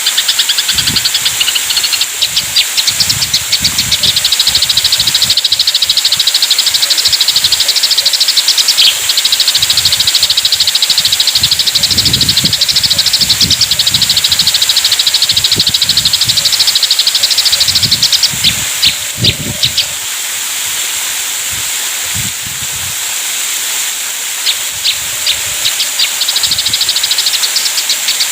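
Eurasian tree sparrows chattering in a fast, dense stream of short chirps, the agitated calls of sparrows fighting. The chatter thins to a few scattered chirps for a few seconds past the middle, then resumes.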